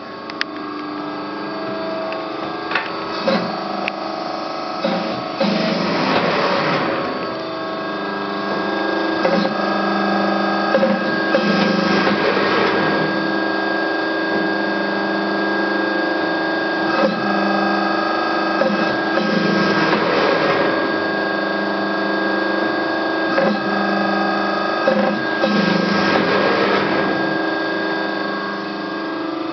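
Amada Promecam HFBO 220-ton CNC press brake running: a steady machine hum with several held tones. About every six to eight seconds a louder mechanical whir lasts a second or two, four times in all.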